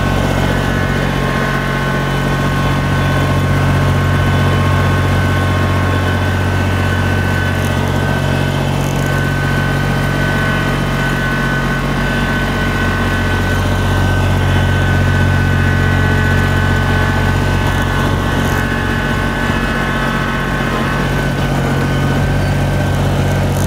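Kubota BX2660 sub-compact tractor's three-cylinder diesel running steadily at part throttle under load, pulling a box blade that is cutting into the soil. A steady high whine sits over the engine note.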